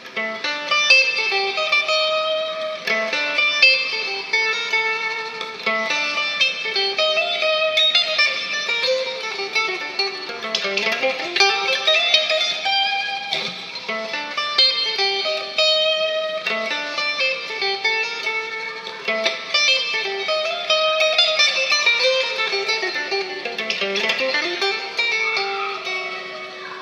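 Unplugged Fender Stratocaster electric guitar picking a gentle melody, the phrase coming round again about halfway through. It has a lo-fi sound, recorded on a phone and reamped, with the treble cut off.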